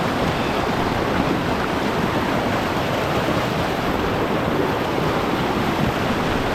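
Steady rush of a fast-flowing river over rocks, an even unbroken water noise.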